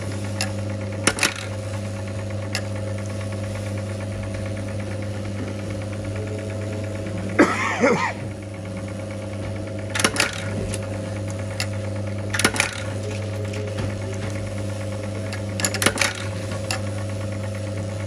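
Button-attaching press fixing metal jeans buttons onto denim: a steady machine hum with sharp metallic clacks every few seconds as the die strikes, often two in quick succession. About halfway through there is a longer metallic jingle, the loudest sound.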